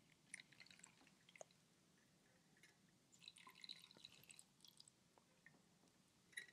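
Near silence, with faint scattered drips of homemade peppermint liqueur straining through a cloth over a funnel into a bottle.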